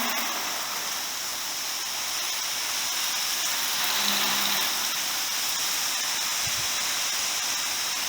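Steady hiss of a gravity-feed soda blaster spraying sodium bicarbonate on compressed air against engine aluminium.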